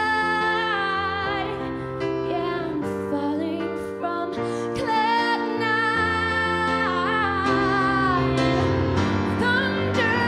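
A woman singing a slow song live into a microphone, with long held notes that waver with vibrato, over sustained instrumental chords.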